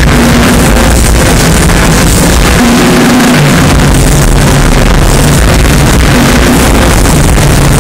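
Live rock drum kit played in a solo at arena volume, heavily distorted and clipped by an overloaded phone microphone.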